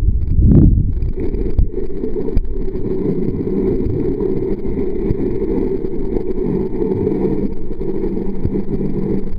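Muffled underwater sound through a waterproof camera: a steady low rushing of water with a constant low hum underneath. A brief louder low whoosh about half a second in.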